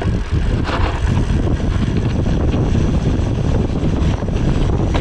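Wind rushing over the microphone of a bicycle rider going fast downhill, a loud, steady low rumble.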